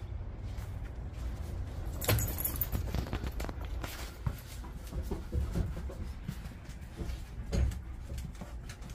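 Footsteps, clinks and knocks as a person walks indoors and a door is opened, with a sharp rattle about two seconds in, over a steady low rumble on the microphone.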